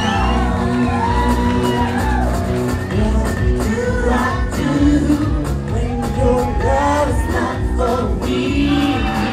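Live electronic pop music: a singer's voice gliding over a heavy bass line and a steady electronic beat, with the echo of a large hall.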